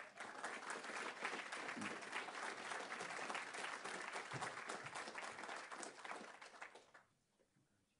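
Audience applauding, a dense patter of many hands clapping that dies away about a second before the end.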